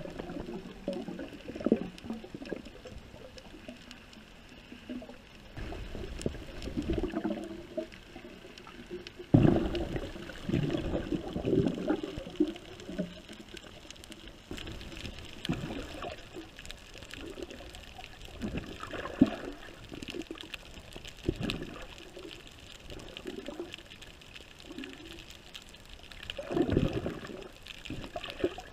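Water sloshing and gurgling around an underwater camera, in irregular surges, with the louder ones about ten seconds in and near the end.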